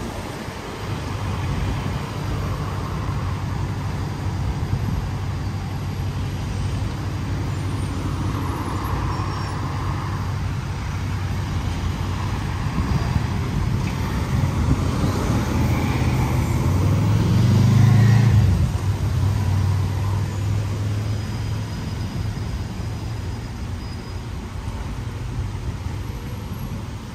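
City street traffic: a steady low engine hum, with one vehicle growing louder and passing close about two-thirds of the way through before fading.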